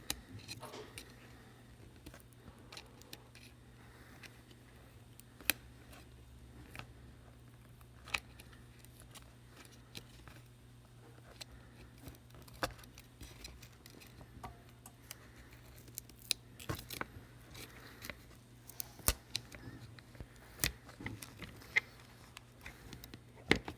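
Irregular small clicks and taps of metal repair tools against an iPhone 7's internal parts as it is taken apart, a few of them sharper, over a low steady hum.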